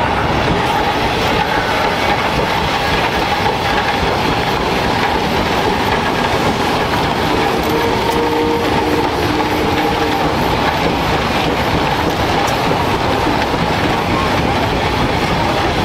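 Steam traction engines, a green Avery and then an A. D. Baker, running and clattering steadily as they drive past. A brief lower tone comes in about halfway through.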